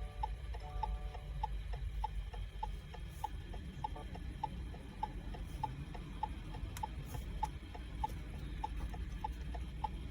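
Subaru Outback hazard-light flasher clicking steadily in an alternating tick-tock, about three clicks a second, over a low steady rumble. A few short electronic beeps sound in the first second or so.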